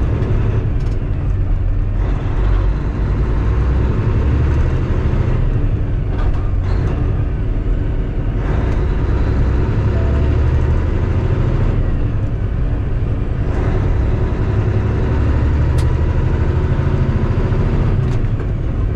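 Heavily loaded semi-truck under way, heard from inside the cab: a steady low diesel engine drone with road and tyre noise on wet pavement.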